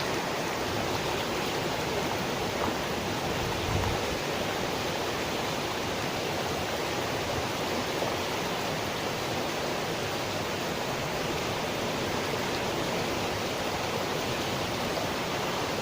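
Steady rush of flowing water, a stream or river running.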